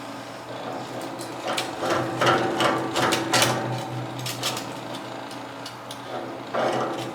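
Quick metallic clicks and rattles from hand work on height-adjustable casters being set to the same height, densest from about one and a half to four and a half seconds in and again near the end.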